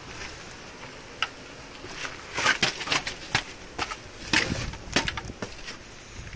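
Footsteps crunching on coarse beach gravel, irregular, starting about a second in and thickest in the middle, over a steady background hiss.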